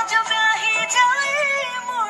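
Background music with a high sung melody gliding between notes over an instrumental backing.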